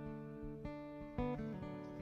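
Background music: an acoustic guitar playing plucked and strummed notes, a new note or chord every half second or so.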